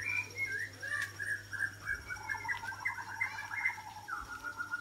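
Birds singing: a continuous run of quick, chirping notes, with a second rapid trill joining about two seconds in.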